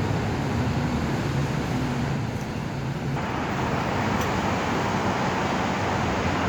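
Steady urban traffic noise: a low vehicle engine hum, then a broader rush of passing-vehicle noise from about three seconds in.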